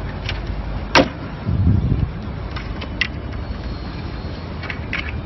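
Scattered sharp clicks and knocks from wooden dance-floor panels and their connectors being fitted together on concrete, the loudest about a second in, with a short low rumble just after, over steady background noise.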